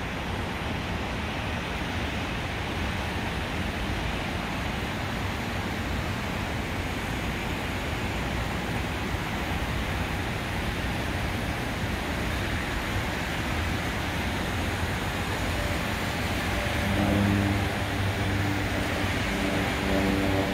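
A steady rushing background noise, with the hum of a Cessna 208B Grand Caravan's Pratt & Whitney PT6A turboprop and propeller coming up clearly about 17 seconds in, getting louder as the aircraft climbs out after takeoff.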